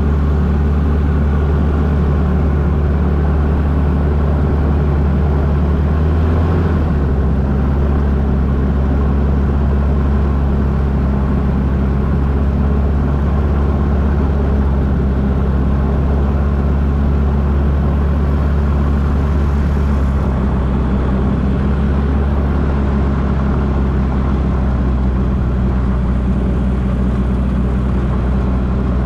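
Magni Gyro M16 gyrocopter's engine and pusher propeller running at low power while taxiing on grass, a steady drone. Its pitch steps slightly about six seconds in and again about twenty seconds in.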